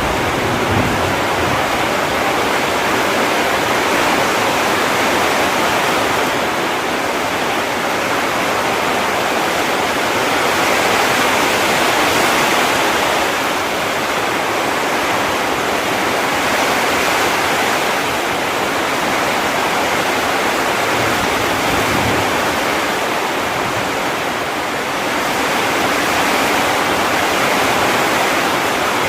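Heavy rain pouring down steadily as a dense, even hiss with slight swells in loudness.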